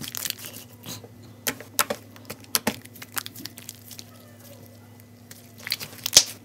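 Watery slime being kneaded and squeezed by hand, giving irregular wet clicks and pops, fewer in the middle and a burst of them near the end.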